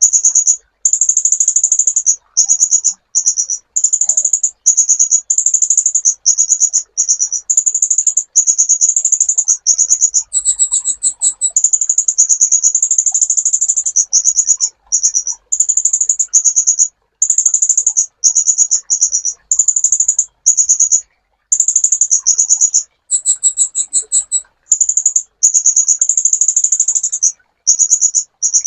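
Sunbird (kolibri ninja) singing: very high, rapid buzzing trills in short phrases separated by brief gaps. Twice, about ten seconds in and again about twenty-three seconds in, a phrase jumps higher with a lower second note under it.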